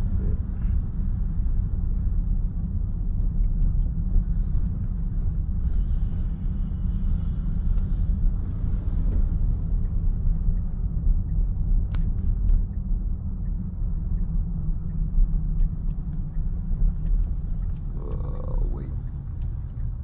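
Steady low road rumble of tyres on a snow-covered road, heard inside the cabin of a moving Tesla.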